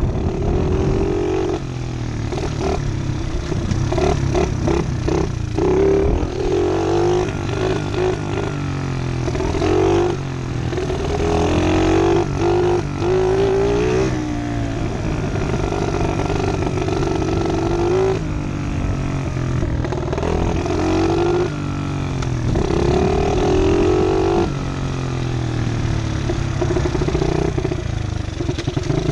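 Small single-cylinder pit bike engine being ridden, its revs climbing and then dropping back again and again every few seconds as the throttle is worked.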